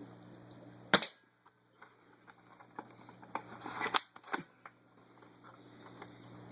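Spring-powered airsoft M14 sniper rifle firing once about a second in, a single sharp crack. It is followed by a run of small clicks and two louder clacks past the middle as the stiff spring is cocked for the next shot.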